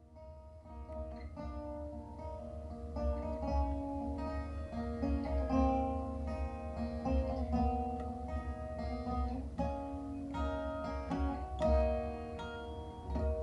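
Instrumental background music of plucked strings, quick picked notes over a steady low drone.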